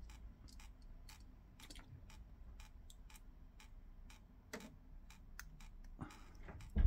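Faint, irregular light clicks and taps of small plastic parts being handled: the front panel and buttons of a Sennheiser body pack transmitter being fitted. A louder thump comes near the end.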